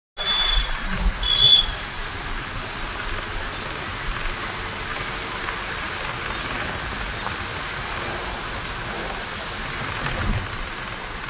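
Steady rushing road and engine noise of a moving bus, with two short high-pitched tones in the first two seconds.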